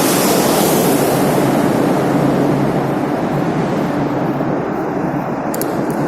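Traffic noise in a road tunnel: motor vehicles passing close by, their engine hum and tyre rush echoing, mixed with wind rushing over the microphone. It eases a little about halfway through, and there are a few light ticks near the end.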